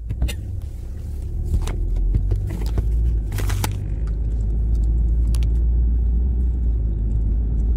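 Low road and engine rumble inside a moving car's cabin, growing louder as the car picks up speed. A few sharp clicks and a brief burst of noise about three and a half seconds in.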